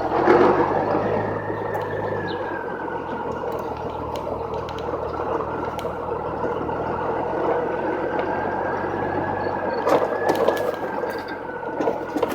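Honda Gold Wing motorcycle engine running steadily, with a faint high whine running over the engine sound and a few light ticks about ten seconds in.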